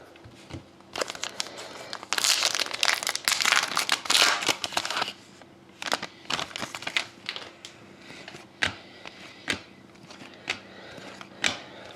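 Plastic packaging crinkling as trading cards are unwrapped and handled, densest about two to five seconds in, followed by scattered light clicks and taps of cards being shuffled and set down.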